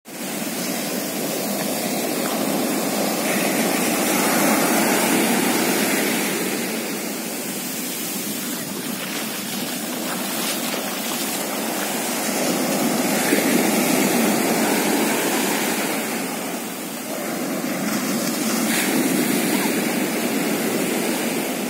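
Sea surf breaking and foaming up a sandy beach: a steady rush of water that swells and eases every several seconds as each wave comes in.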